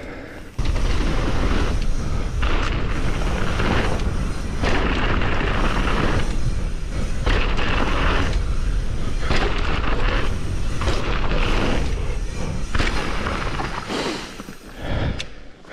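Wind buffeting a chest-mounted GoPro's microphone, with tyres rolling over dirt and gravel as a mountain bike rides down a trail. It starts suddenly about half a second in, as the bike gets moving, and dies down near the end.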